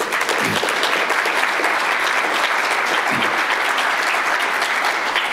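An audience applauding: steady, dense hand-clapping from a room full of seated listeners.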